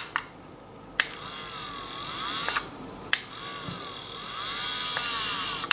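AM43 smart blind motor's small geared motor whirring in two runs, about one and a half and two and a half seconds long, each started and stopped by a sharp click of its push buttons.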